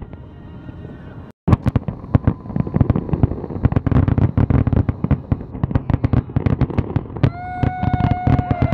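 Aerial fireworks going off in rapid, overlapping bangs and crackles, resuming after a brief dropout about a second in. Near the end, long steady pitched tones sound over the bursts.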